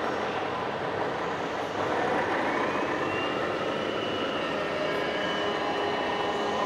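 Radio-controlled scale tipper truck driving, with a whine that rises in pitch about two seconds in and then holds steady, over steady background noise.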